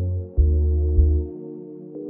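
Background music: held synth chords over deep bass notes that come in about three times.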